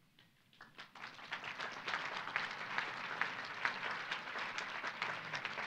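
Audience applause: after a brief hush, a few scattered claps come about half a second in, then many people clap steadily.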